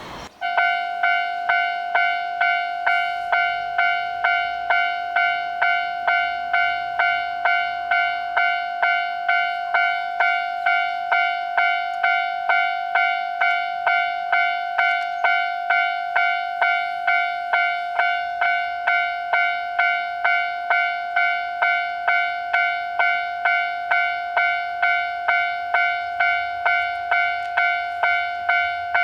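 Japanese railway level-crossing warning bell ringing in an even, steady rhythm of bright dings, starting about half a second in; it signals that a train is approaching.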